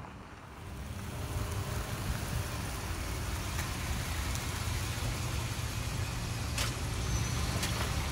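Steady motor-vehicle noise: a low rumble under an even hiss, building about a second in, with a few faint clicks.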